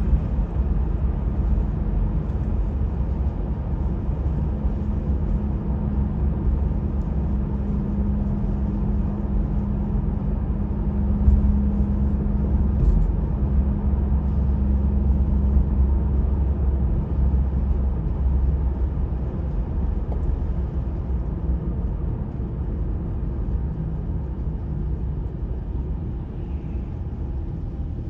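Steady low rumble of a vehicle on the road, with a constant hum underneath and no marked changes.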